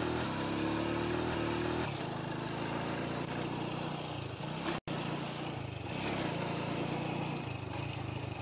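A car engine running as the car drives closer, its pitch rising, dipping once and rising again. Then a small motorbike engine runs as the bike approaches, its pitch wandering up and down.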